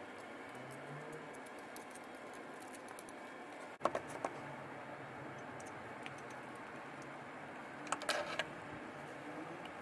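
A few light clicks and taps of small parts being handled over a steady low hiss: one sharp click about four seconds in and a quick cluster of clicks near the end.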